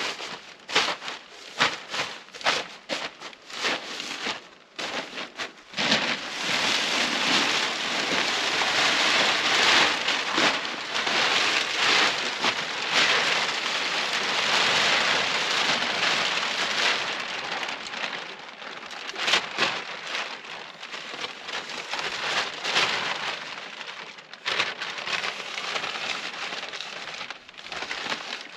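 A large sheet of clear plastic film crinkling and rustling as it is unfolded and shaken out by hand. For the first few seconds it gives separate sharp crackles, then a dense, continuous rustle.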